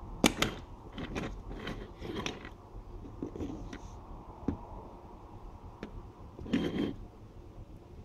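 Small plastic toy figures and a plastic toy motorbike being handled and set down on a table: a series of short clicks and knocks, with a louder clatter about six and a half seconds in.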